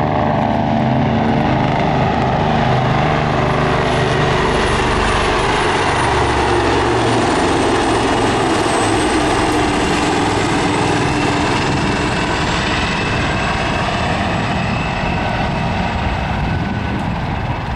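Mixed formation of Royal Navy helicopters and propeller aircraft flying past. Their engines and rotors drone loudly and steadily, and the engine tones slide down in pitch as the formation passes.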